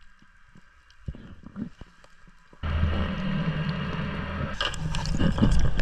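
After a couple of seconds of near quiet with a few low thumps, a boat engine's steady low hum starts suddenly about two and a half seconds in, with rushing water. From about four and a half seconds in, water splashes over it.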